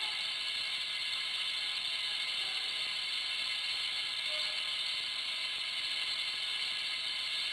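Vibratory bowl feeder running with a load of screws: a steady, fairly high-pitched metallic rattle as the screws vibrate around the bowl and line up along the track to the outlet rail.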